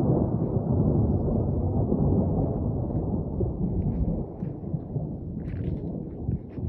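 Thunder from a lightning strike: a loud low rumble that starts suddenly, holds for a few seconds and slowly dies away.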